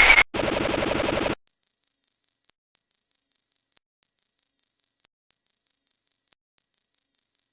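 Synthesized sci-fi electronic sound effects: a short burst of glitchy static, then a second of buzzing noise, followed by five long, steady, high-pitched beeps, evenly spaced, like a futuristic computer alarm.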